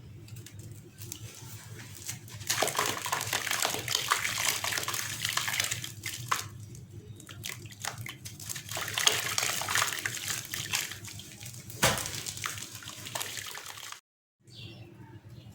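Dried lumps of gritty sand-cement mix crumbling apart in water, a crackling, gritty hiss that comes in swells, with one sharp crack about twelve seconds in. The sound drops out briefly near the end.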